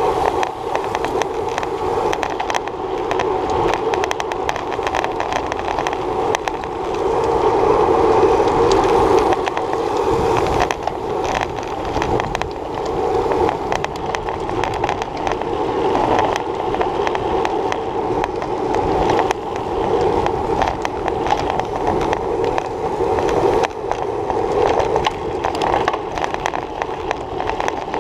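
Road bike rolling fast over rough, patched asphalt: steady rumble and wind noise with a constant run of small knocks and rattles from road vibration, heard through a handlebar-mounted GoPro.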